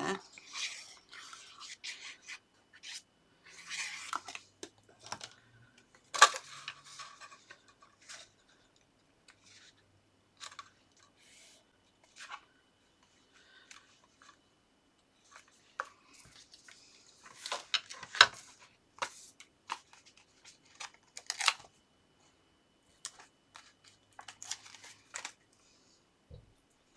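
Paper and card being handled on a craft desk: intermittent rustling and scraping, with a few sharp taps and clicks as pieces are set down.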